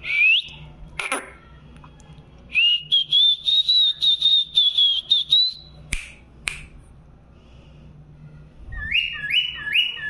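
Cockatiel whistling. A short rising whistle comes at the start, then a long high whistle of rapid chopped notes, two sharp clicks, and near the end a run of short rising notes repeated several times.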